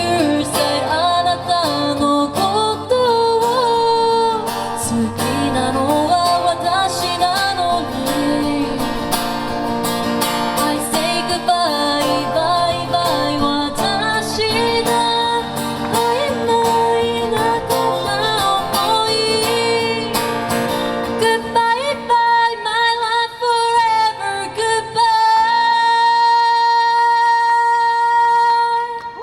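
A woman singing live to acoustic guitar, the closing bars of a pop ballad; in the last few seconds the accompaniment drops away and one long note is held to the end.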